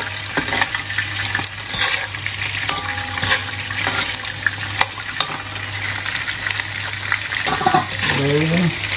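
Prawns deep-frying in hot oil: a steady sizzle with frequent pops and crackles, the oil spattering because of the water on the prawns.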